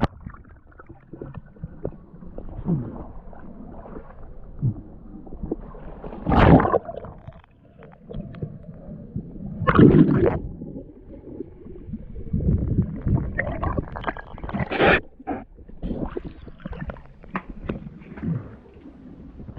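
Muffled water sounds around a diver in a river: gurgling and sloshing, with a few louder rushing bursts of bubbles and water movement, the biggest about six and a half, ten and fifteen seconds in.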